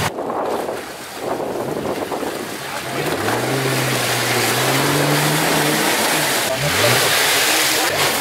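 Jeep Wrangler engine revving hard as it pushes through deep mud, its pitch climbing over a few seconds and then dropping and rising again near the end. Behind it is a steady rushing noise from the spinning tyres throwing mud.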